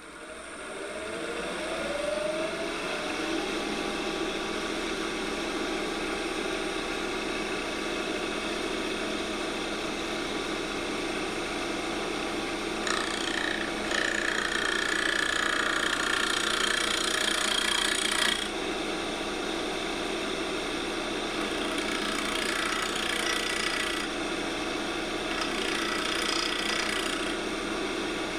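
Wood lathe spinning up with a rising hum, then running steadily while a turning tool cuts into an off-centre ash workpiece. A louder, brighter cutting pass comes about halfway through, with shorter cuts near the end.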